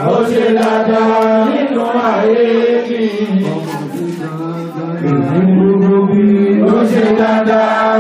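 A man chanting an Islamic praise song into a microphone, in long held notes that slide from one pitch to the next.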